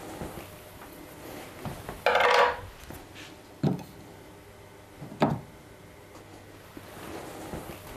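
A hand tool working the metal strike plate of a door frame, bending back the slightly dented plate so the latch can catch. About two seconds in there is a half-second ringing metallic scrape, then two sharp knocks about a second and a half apart.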